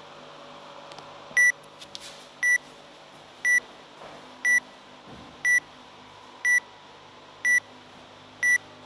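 Workout countdown timer beeping down to the start of the workout: a short, high electronic beep once a second, eight in a row, starting about a second and a half in.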